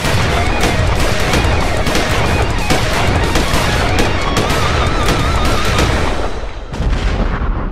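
Rapid, continuous gunfire sound effects like a machine-gun volley, laid over background music, dying away about six and a half seconds in.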